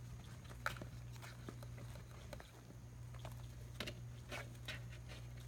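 Small kittens scampering and batting a toy on a paper absorbent pad: scattered soft taps and scuffs of paws and claws over a low steady hum.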